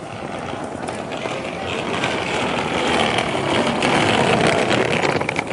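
A motor vehicle passing close by on a city street, growing louder to a peak about four seconds in and then fading.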